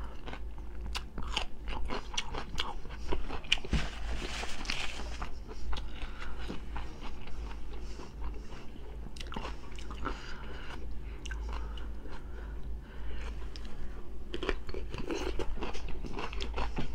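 A person eating: crisp, irregular crunching bites and chewing of raw cucumber dipped in sauce.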